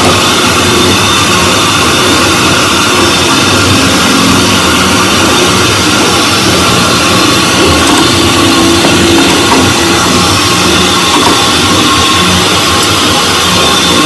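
Loud, steady rock-style background music, with a dense machine-like noise under it.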